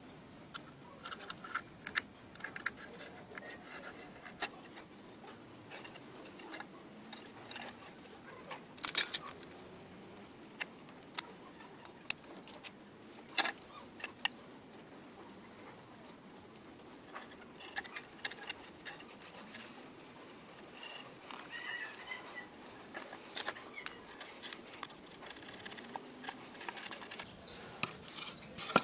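Scattered taps, clicks and knocks of wooden speaker-box parts being handled and fitted together, with some rubbing and rustling. Two sharper knocks come about 9 and 13 seconds in, and the handling noise grows busier in the last ten seconds.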